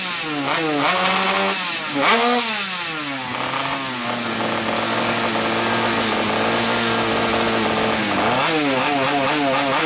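Drag-racing motorcycle engine being revved during a tune-up: quick rising-and-falling throttle blips, then held at a steady raised speed for about four seconds in the middle, then blipped again near the end.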